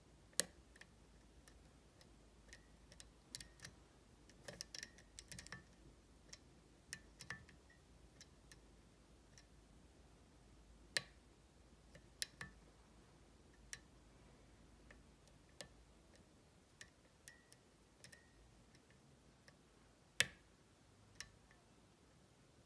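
Kwikset SmartKey Gen 1/2 lock being picked: faint, irregular metallic clicks and taps from the pick and tension tool working in the keyway. The clicks come scattered, with sharper ones about half a second in, around the middle and about two-thirds of the way through.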